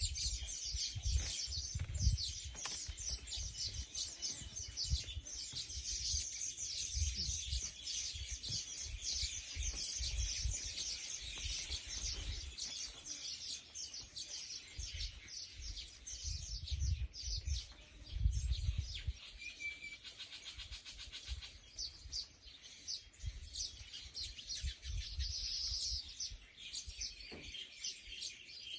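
Small birds chirping in a rapid, continuous stream of short high calls, with dull low thumps underneath at times.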